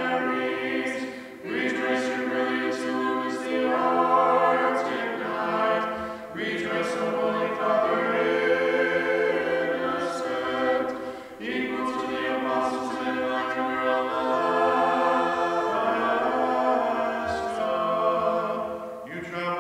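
A small group of voices singing an Orthodox chant a cappella, in several long phrases with brief breaks for breath.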